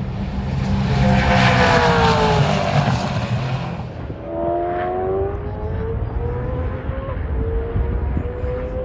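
Supercars V8 race car engines at speed. First one passes with its pitch falling, then an engine revs up through the gears as a car accelerates away, with an upshift about seven seconds in.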